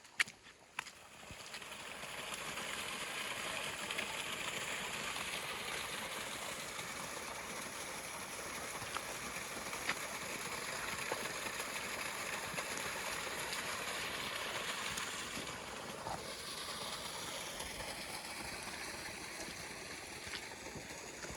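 Steady rush of running water, swelling in over the first couple of seconds and holding on, with a shift in its tone about sixteen seconds in.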